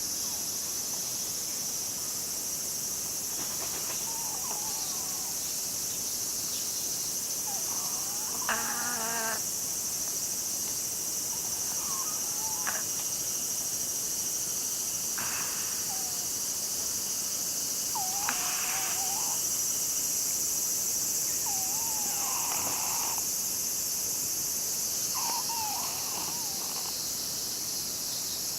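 A sleeping Siamese cat snoring, with a short whistling, wavering squeak on each breath about every three to four seconds, over a steady high drone of insects.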